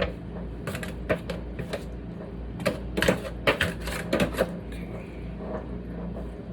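Kitchen clatter of things being handled: a few sharp clicks and knocks about a second in, then a quick cluster of them from about three to four and a half seconds in, over a steady low hum.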